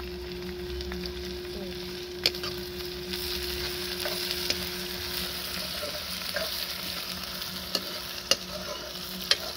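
Tadka sizzling steadily in hot oil in a pan over a wood-fired chulha while it is stirred, with a few sharp clicks along the way.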